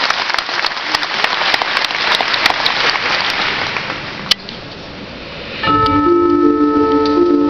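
Audience applauding, the clapping fading out a little over four seconds in. After a short lull, sustained keyboard chords begin near the end.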